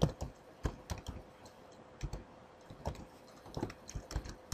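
Someone typing a password on a computer keyboard: irregular clicking keystrokes.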